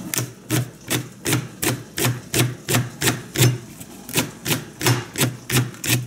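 Santoku kitchen knife chopping a green vegetable stalk on a plastic cutting board: a steady run of sharp knocks, about three a second.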